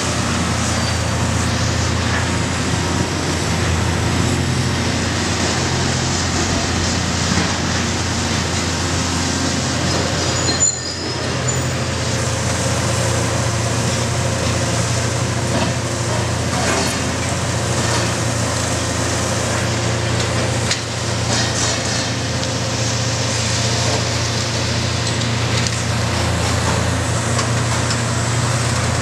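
Demolition excavators at work: diesel engines running steadily under load, with scattered crunching and cracking as their hydraulic crushers break up reinforced concrete.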